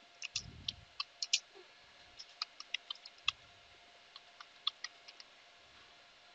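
Faint computer keyboard key presses: irregular clicks as a short command is typed, ending a little after five seconds in.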